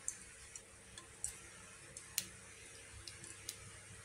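Faint, scattered sharp ticks and pops, about six across four seconds, from oil heating in a frying pan, over a low steady hum.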